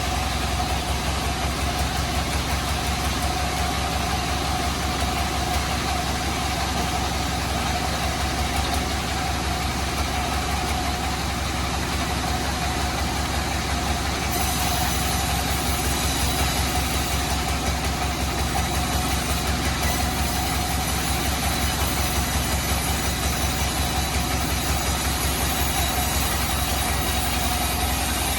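Bandsaw sawmill running steadily, with a fast even low pulse and a steady mid-pitched hum.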